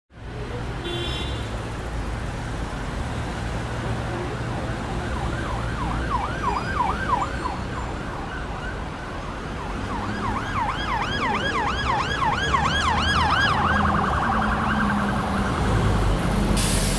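Street traffic running with a low rumble, and an emergency vehicle's siren in a fast yelp, rising and falling about four times a second. It sounds briefly about five seconds in, then again for longer from about ten seconds in.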